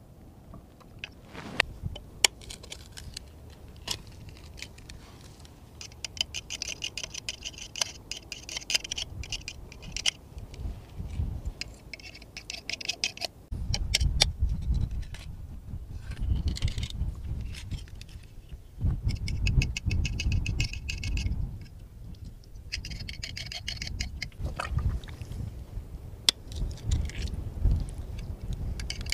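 A metal-spiked hand pick tapping, prying and scraping against oyster shells on a shell-encrusted stake: many sharp clicks and cracks, with several stretches of gritty shell scraping. Bouts of low rumble come and go in between.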